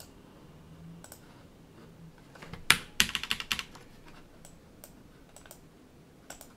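Keystrokes and clicks on a computer keyboard and mouse: one sharp click about two and a half seconds in, a quick run of keystrokes right after, then a few scattered single clicks.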